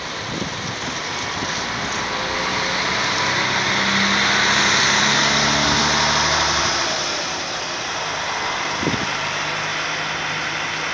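A motor vehicle engine running with a steady hum that swells about four seconds in and eases after about seven seconds, over a constant hiss. There is a short knock near nine seconds.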